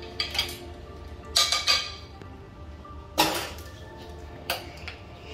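A spoon clinking and knocking against dishware in a handful of separate strikes as bruschetta topping is scooped onto toast, the loudest about three seconds in. Soft background music underneath.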